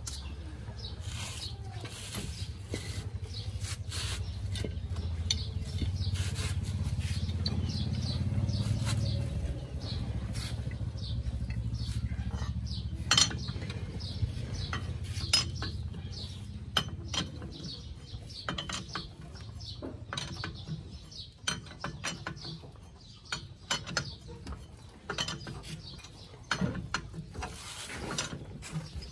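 Ratchet wrench clicking in short runs as nuts are turned on the front axle's leaf-spring U-bolts, with scattered metal tool clinks. A low steady hum runs underneath through roughly the first third and then fades.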